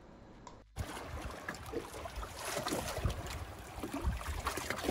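Water washing and lapping over rocks, a steady splashing wash with scattered small splashes, and wind knocking on the microphone. It starts abruptly about a second in.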